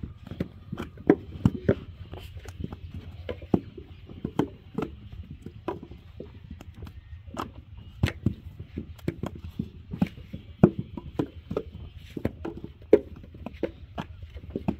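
Irregular knocks and dull thuds, several a second and uneven in strength, from clay brick-making done by hand, with a steady low hum underneath.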